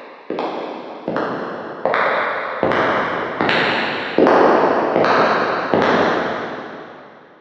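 Footsteps walking at an even pace, about one step every three-quarters of a second, each step ringing on with a long echo. The steps grow louder as if approaching, the last one about six seconds in, then the sound fades away.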